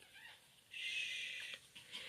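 A three-week-old Morkie puppy gives one high-pitched squeal, a little under a second long, starting under a second in, as she protests being handled.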